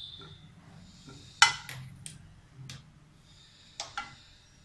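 Steel spoon clicking against a nonstick frying pan and wooden spatula as desi ghee is scooped into the hot pan, with a soft sizzle of the ghee melting. A sharp click comes about a second and a half in, and a couple more near the end.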